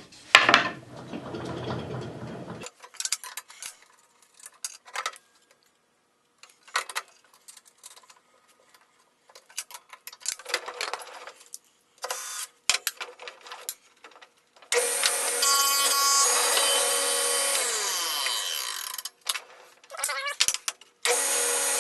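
Scattered metal clicks and clatter as a wobble-wheel dado blade is adjusted and refitted on a table saw arbor. Then the table saw motor runs steadily for about four seconds, its pitch falling before it stops, and starts running again near the end.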